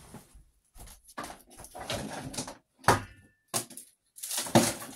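Packaging rustling and knocking in short, irregular bursts as garbage is gathered up and dropped into a small trash can, with a sharp knock about three seconds in.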